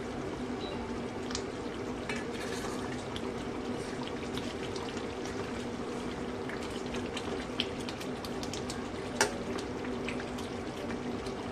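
Thick chicken curry gravy simmering and bubbling in a steel kadhai while a steel ladle stirs through it, with occasional light clicks of the ladle against the pan.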